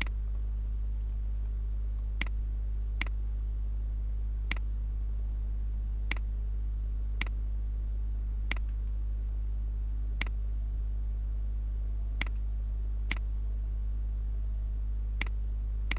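Computer mouse clicking: about a dozen sharp single clicks at uneven intervals while vertices on a face mesh are selected and moved. A steady low electrical hum runs underneath.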